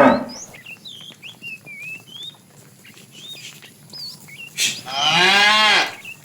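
A cow moos once about five seconds in, a single call of about a second that rises and falls in pitch; the end of an earlier moo fades out at the start. Short high chirps sound faintly throughout.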